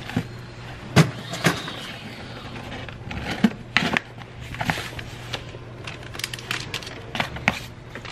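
A cardboard shipping box being handled and closed by hand: scattered taps and knocks on the cardboard, with scraping and rustling between them, over a faint steady low hum.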